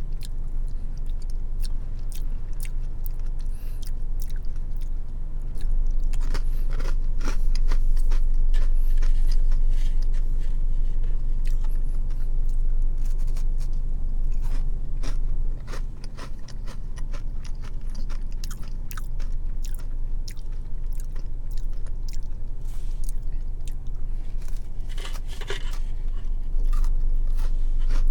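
Close-up chewing and crunching of crisp cinnamon biscuits with almond butter filling, with irregular sharp crunches throughout, over a steady low hum.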